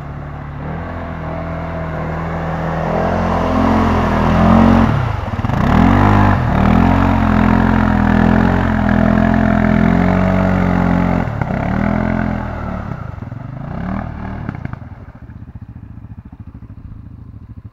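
CFMoto ATV engine revving hard as the quad churns through deep mud ruts, the pitch rising and dropping with the throttle twice, then fading as it pulls away.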